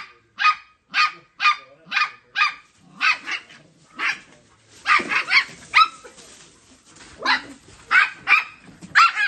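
A dog barking repeatedly in short, high-pitched barks, evenly at about two a second for the first few seconds, then in irregular bunches.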